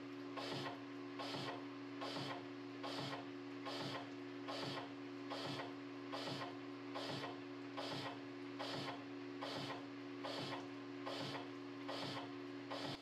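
Lathe turning the outside diameter of a large wheel-spacer blank, the slowly spinning part thudding against the boring-bar insert once per revolution, about every 0.8 s. The thud is an interrupted cut: a groove across the outside edge, left by the water-jet pilot hole, comes around and hits the insert each turn. A steady hum from the lathe's drive runs beneath.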